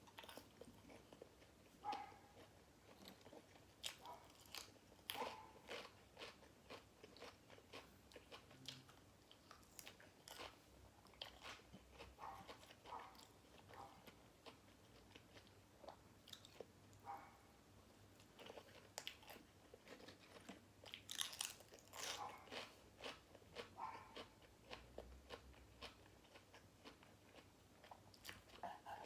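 Close-up, quiet chewing and crunching as grilled pork balls are eaten with crisp raw vegetables: irregular bites and crackly crunches, with wet mouth sounds between them.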